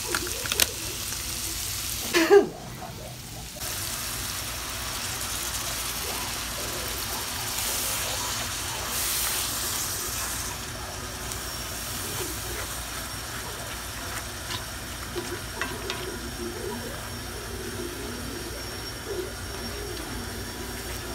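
Ground beef and green peppers sizzling in a skillet as taco seasoning and water are stirred in with a plastic spoon, a steady hiss of frying and simmering. A sharp clatter about two seconds in.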